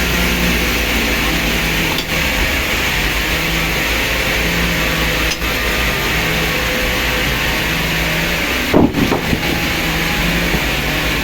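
Steady machine hum and whir, with a brief louder knock about nine seconds in.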